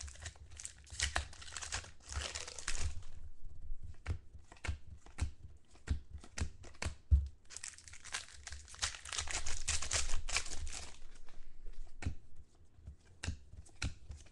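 Trading-card pack wrappers being torn open and crinkled, and the cards inside being handled. There are two longer stretches of rustling, at the start and again past the middle, with sharp clicks and taps between them. One tap a little past the middle is the loudest.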